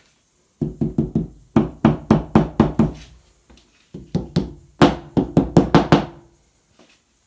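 Hammer tapping a plastic wall plug into a hole drilled in the wall: quick runs of sharp knocks, several a second, with a pause about halfway through.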